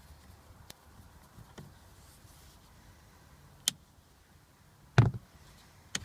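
Scattered light clicks and taps of a screwdriver and plastic parts being handled while the wiper switch is unscrewed from the steering column, with one louder knock about five seconds in.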